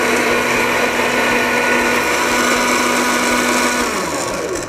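Electric countertop blender running at high speed, grinding a wet spice paste. Near the end it is switched off, and the motor's pitch falls as it winds down.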